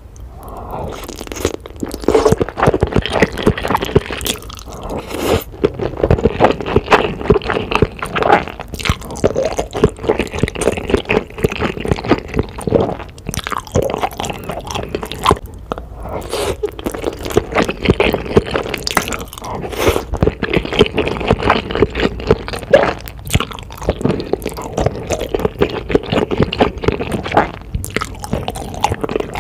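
Close-miked slurping and chewing of black bean sauce noodles: wet, sticky mouth sounds and smacks, over and over.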